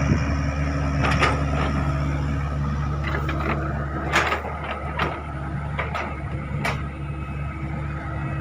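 Hydraulic excavator's diesel engine running steadily under work, with several sharp knocks from the working machine; the engine sound eases slightly about halfway through.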